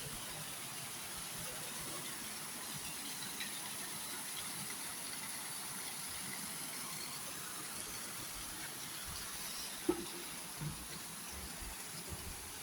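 Steady rush of flowing water with a constant high hiss over it, broken by one short knock about ten seconds in.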